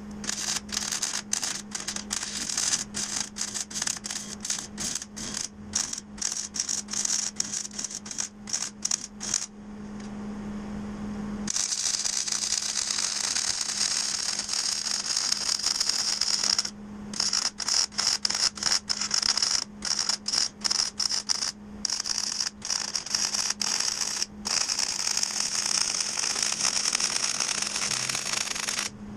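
Electric arc welding on the steel body frame, crackling. For the first several seconds it comes in many short broken bursts, then pauses briefly with a low hum. From about a third of the way in it runs in longer beads with a few brief stops.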